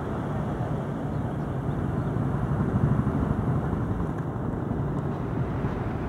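Steady low rumble of a diesel-hauled passenger train running away down the line after passing, swelling slightly about halfway through.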